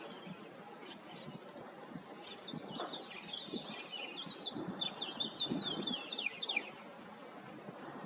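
A small songbird singing a fast twittering run of short, high, downslurred notes, starting about two seconds in and stopping a little before the end.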